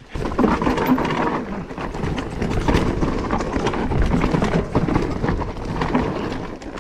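Vitus Sommet mountain bike riding down a rough dirt and stone trail: tyres rumbling and crunching over the ground, with the bike clattering and knocking over bumps.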